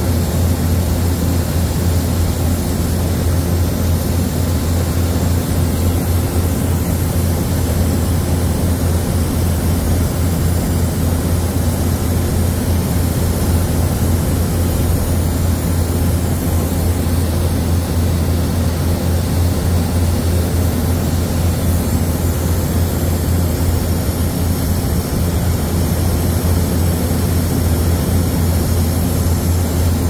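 Brazing torch burning steadily on a copper refrigerant line, over a loud, steady low hum.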